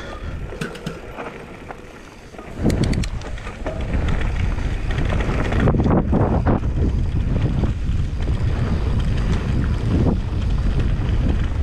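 Wind rushing over the microphone of a mountain bike rider on a trail, along with the rolling noise and rattle of the bike. It starts quieter with a few sharp clicks, then about two and a half seconds in swells to a steady, loud rumble as the bike picks up speed.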